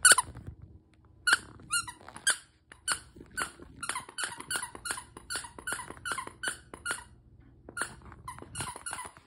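Squeaker in a red plush dog toy squeaking over and over in short, irregular squeaks, about two to three a second, as a puppy chews on it.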